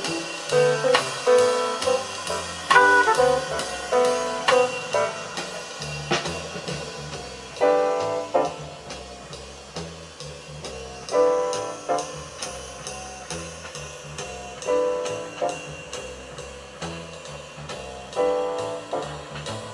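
Instrumental jazz played through Dynaco A-10 bookshelf speakers driven by a Technics SE-A100 stereo power amplifier. A drum kit keeps a steady beat under a bass line, and bursts of piano or brass chords come in every few seconds.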